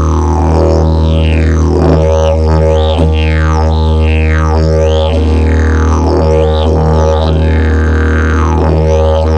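A fiberglass and prickly-pear-fiber didgeridoo, a two-piece double-slide build, droning on one steady low note. The player shapes the mouth to sweep the overtones in a rhythmic wah pattern about once a second, with a few sharp accents.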